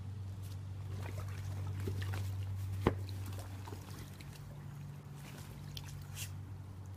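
Swimming-pool water sloshing and trickling as a dog climbs into an inflatable kiddie pool floating on it, with one sharp knock about three seconds in. A steady low hum runs underneath.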